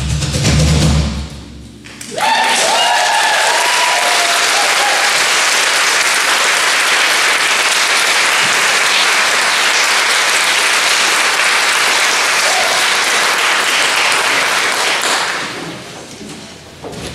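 A band's last chord rings out and dies away, then an audience applauds from about two seconds in, the clapping fading near the end.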